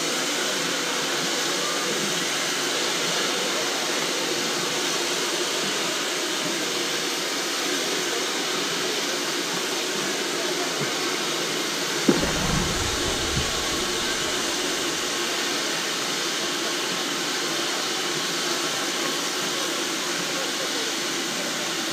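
Ol49 steam locomotive standing with a steady hiss of escaping steam, and voices murmuring in the background. A single thump about halfway through, followed by a brief low rumble.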